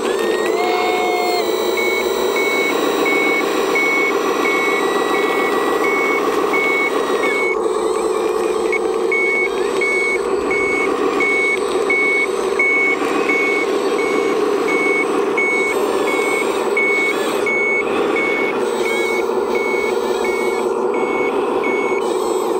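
RC articulated dump truck's sound module: a simulated diesel engine running steadily, with a reversing beeper sounding about two beeps a second from about two seconds in.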